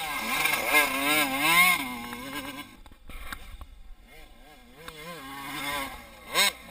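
Motocross bike engines revving up and down as the bikes ride the track, loudest for the first couple of seconds, then fainter, with a short loud rev near the end.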